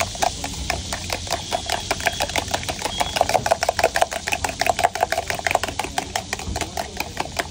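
Steel spoon beating eggs in a steel tumbler: rapid, even clinks of metal on metal, several a second.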